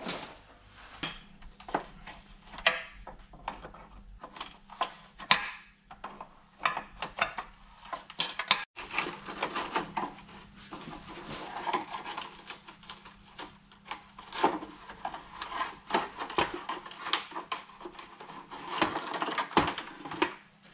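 Irregular clicks, knocks and clatter of hand work on car parts, with a faint low hum underneath for the first part.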